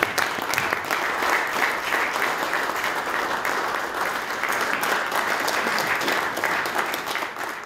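Seated audience applauding, a steady dense patter of many hands clapping that fades out near the end.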